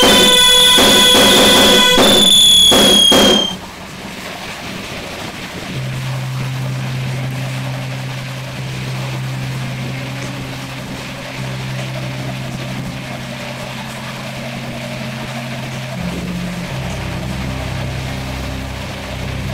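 Background electronic music with a steady beat and high synth tones, cutting off about three and a half seconds in. Quieter music follows, a sustained low note that steps to a new pitch every few seconds.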